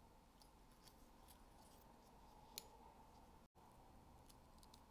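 Near silence with faint small metal clicks and taps from a spring bar tool working a spring bar into a wristwatch's lugs as a leather strap is fitted, one sharper click about two and a half seconds in.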